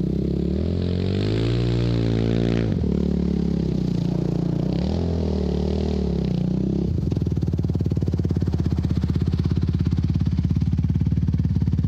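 Yamaha YFZ450 quad's single-cylinder four-stroke engine revving up and easing off twice as the quad rides. From about seven seconds in it settles into a steady, evenly pulsing run.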